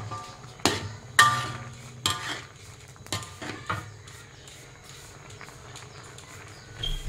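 Metal spatula knocking and scraping against a wok while stirring shrimp in gravy. There are about six sharp clanks in the first four seconds, some ringing briefly, then only faint stirring.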